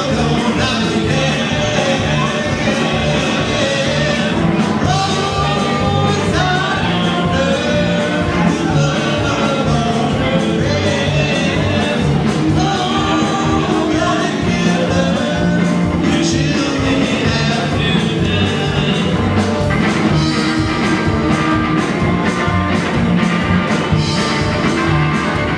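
Live rockabilly band playing: upright bass with a steady slapped beat, a hollow-body electric guitar, and a voice singing.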